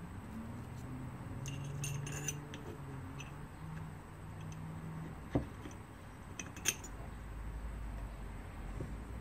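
Light metallic clicks and clinks from a small screw and washer being fitted into an aluminium water block, in a quick cluster early on and a couple more later, with one duller knock about halfway through. A low hum runs under the first half.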